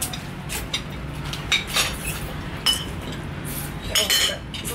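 Spoons and dishes clinking during a meal: several light, sharp clinks at irregular intervals, a few ringing briefly, with a busier cluster about four seconds in.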